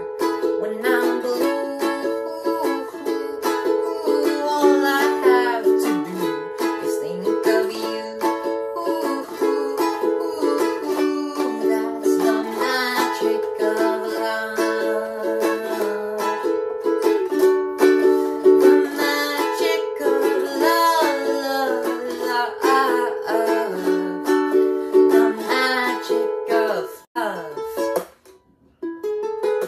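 Ukulele strummed in a steady rhythmic pattern, cycling through the chords G, Gmaj7sus2, C and Gmaj7sus2; the playing stops shortly before the end.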